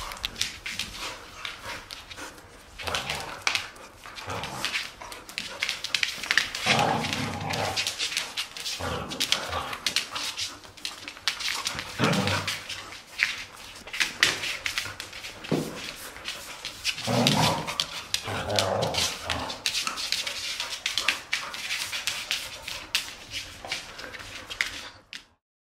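Two dogs, a Labrador retriever and an Old English Sheepdog, play-fighting with barks at intervals and claws clicking and scrabbling on a hard floor. The sound cuts off suddenly near the end.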